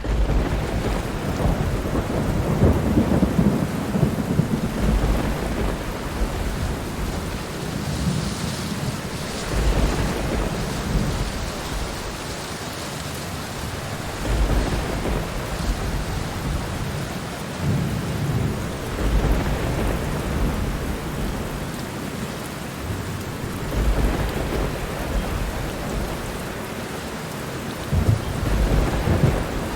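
Steady, heavy rainfall hiss with rolls of thunder rumbling through it every several seconds, about five low swells in all.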